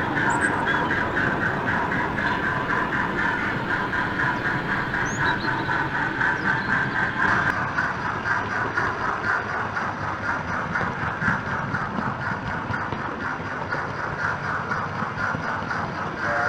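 Sound decoder in a Hornby Britannia 4-6-2 model steam locomotive playing a steady, rhythmic exhaust chuff as the model runs along the track, growing slightly quieter toward the end.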